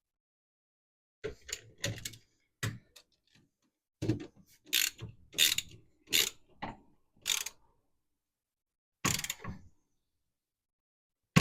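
Wrench working on the brake line fittings at a car's master cylinder: about ten short, irregular metallic clicks and ratcheting strokes with silent gaps between them, and a sharper click at the end.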